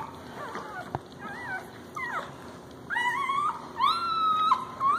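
Newborn puppies whining: a run of high, thin cries that rise and then hold, several in a row, the longest and loudest near the end.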